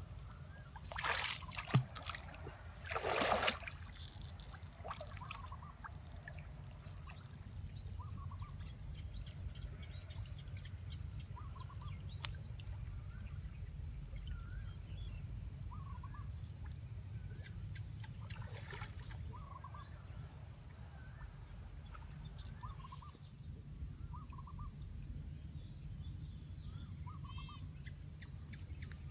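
Outdoor ambience: a steady high insect drone, short bird chirps every second or two, and a couple of brief water splashes about one and three seconds in.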